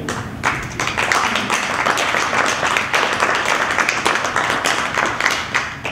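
Audience applauding: many people clapping at once, starting just after the talk ends and holding steady.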